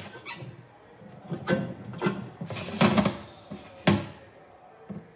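A handful of sharp clanks and knocks from a red metal container's lid and its swing handle as they are handled, each with a brief metallic ring.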